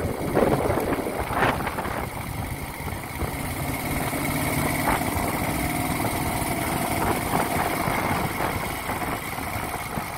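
1970 Moto Guzzi Ambassador's air-cooled 757 cc V-twin, its engine rebuilt, idling steadily, with a few brief clicks.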